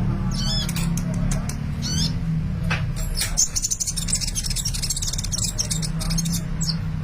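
Sunbird singing: rapid, high twittering chirps, sweeping notes and trills, with a steady low hum underneath.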